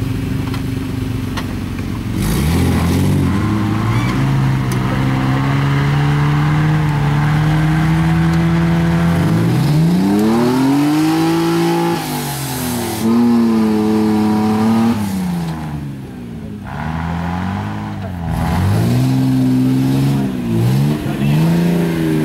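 Mercedes G-Class 4x4's engine revving hard under load as it works through deep mud and up a step, its revs surging up and falling back several times.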